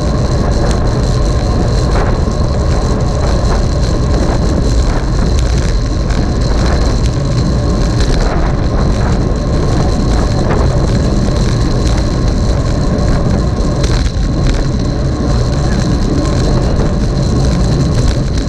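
Steady rumbling wind noise on the microphone with road noise while riding in a moving cycling race, with a faint high steady tone over it.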